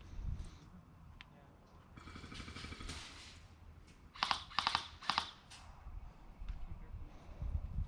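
Airsoft guns firing short full-auto bursts: a longer, fainter burst about two seconds in, then three quick, louder bursts around the middle.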